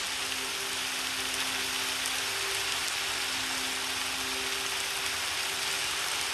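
Background track of steady rain falling, with a few soft piano notes held low beneath it.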